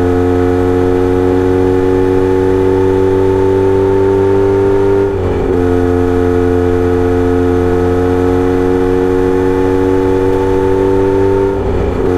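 Kawasaki Z900RS inline-four running through a Misty Kintaro short-pipe muffler with a 70 mm silencer. The exhaust note climbs slowly and steadily, breaks off with a brief drop about five seconds in, then climbs again until another brief break near the end.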